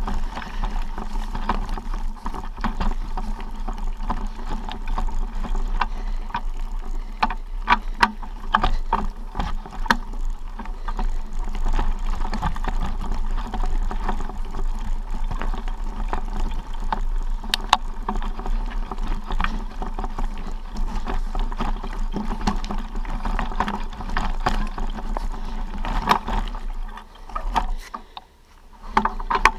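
A hiker's footsteps crunching and clicking on a stony, leaf-covered trail, step after step, over a steady low rumble on the microphone. The steps pause briefly just before the end.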